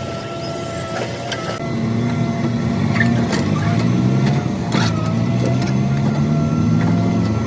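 Excavator running, its engine pulling harder about two seconds in, with a steady mechanical whine and scattered clanks and knocks.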